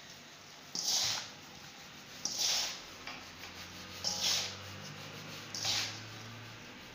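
Semolina mixed with olive oil being rubbed between the palms in a metal pan. Each stroke gives a short hiss, four strokes at about one every second and a half.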